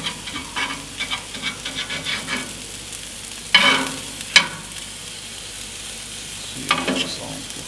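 Meat sizzling steadily in a hot frying pan on a gas grill, with metal tongs clicking and scraping against the pan as pieces are turned; two sharp clacks a little past the middle and another near the end are the loudest.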